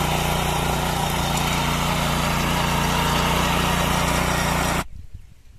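Engine of a 7 HP centre-rotary power weeder running steadily while its tines till the soil. It cuts off suddenly near the end.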